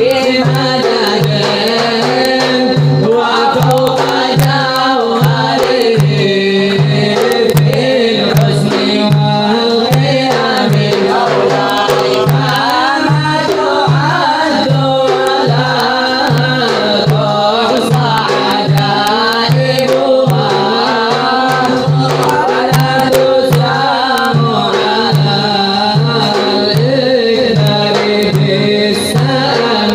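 A male munshid chants a nasheed in melismatic Arabic style over a steady, evenly repeating low drum beat.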